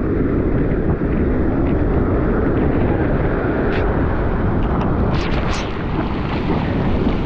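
Heavy wind rumbling on the microphone over surf washing up the beach. A few short clicks come a little past the middle.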